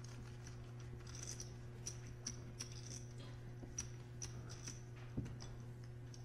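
Poker chips clicking together as a player handles his stack: a scatter of light clacks, about two a second, over a faint steady hum.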